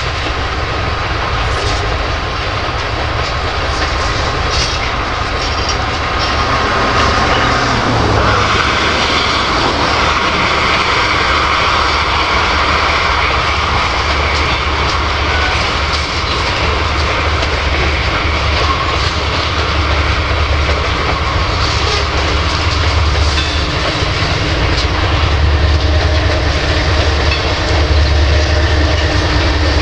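Freight train cars rolling slowly past, a steady rumble of steel wheels on rail with scattered clicks. The low rumble grows louder over the last few seconds.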